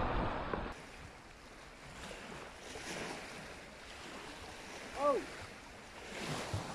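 Faint, steady wash of small waves on a shingle shore, with a short pitched call that rises and falls about five seconds in.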